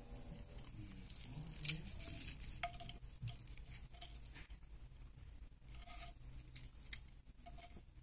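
Light scattered scraping, tapping and crackling as fingers pick at burnt, charred snack puffs on a glazed clay plate, with a couple of sharper clicks. A low steady hum sits underneath.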